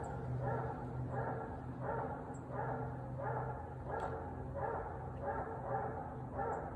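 A hound barking over and over at a steady pace, about one and a half barks a second: a hound's tree bark, the sign that it has an animal treed.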